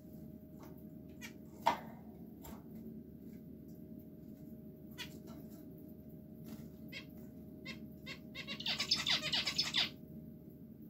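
Caged zebra finches and society (Bengalese) finches calling: short single calls every second or so, the loudest about two seconds in, then a burst of rapid chattering calls near the end.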